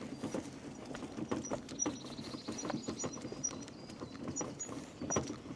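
Loaded metal wheelbarrow rolling over cobblestones, its wheel, tray and cardboard-boxed load clattering with irregular knocks.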